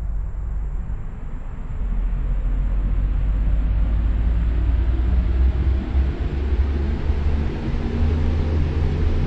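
A fan running: a steady rush of air noise with a strong low hum, growing louder over the first two seconds and then holding.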